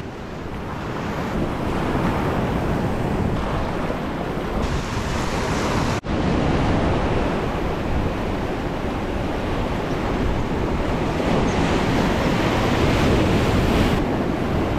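Ocean surf washing steadily, with wind buffeting the microphone. The sound cuts out for an instant about six seconds in.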